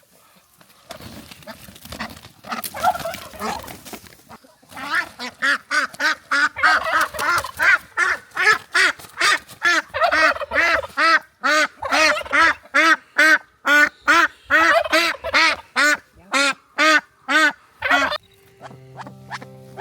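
Domestic waterfowl honking loudly and over and over, about two calls a second, after a few seconds of scuffling. The calls stop shortly before the end, where music comes in.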